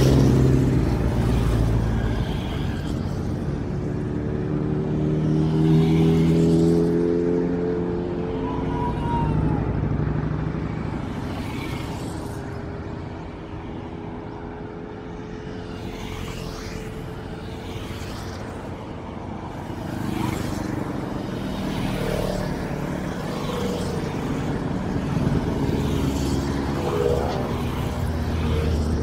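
Motorcycles and a few cars passing one after another on a road, each engine swelling and fading as it goes by, with pitch changes as riders shift. The passes are loudest at the start, about six seconds in and near the end, with a quieter lull in the middle.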